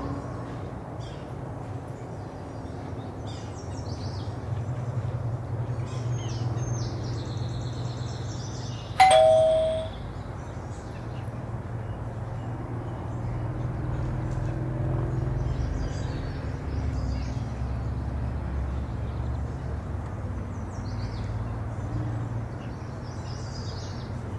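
Electronic doorbell chiming once, a two-note ding-dong falling from a higher to a lower tone, about nine seconds in. Under it a steady low hum and faint bird chirps.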